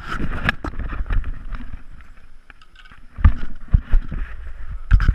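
Irregular knocking, scuffing and rustling of a hiker's trekking poles, boots and gear against the rock while moving through a narrow stone tunnel. Heavy bumps on the worn camera come about three seconds in and again near the end.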